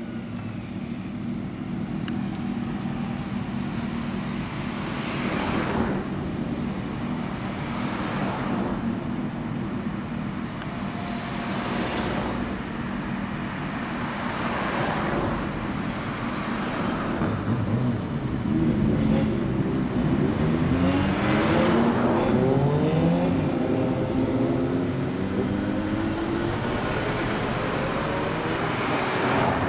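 A group of motorcycles riding past one after another in slow street traffic, mixed with passing cars. Their engines hum steadily, with several swells as vehicles go by; the loudest stretch comes partway through, where several engine notes rise and fall in pitch together.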